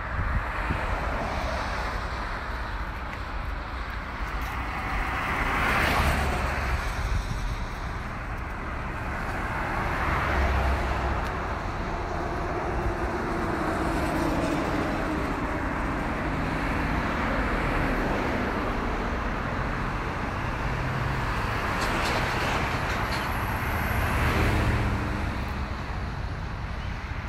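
Outdoor road traffic noise: a steady low rumble, with vehicles swelling past about six seconds in, around ten seconds and near the end.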